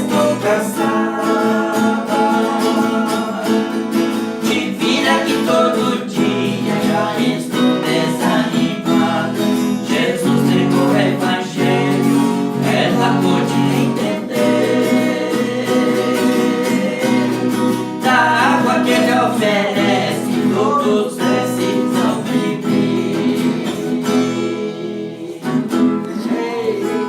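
Acoustic guitar strummed and picked, accompanying singing voices in a Christian praise song, with a brief lull near the end.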